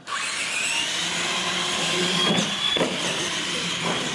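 Electric motors of R/C monster trucks whining as they launch off the line and accelerate down the track, the whine starting suddenly and rising steadily in pitch. A couple of sharp knocks come about halfway through.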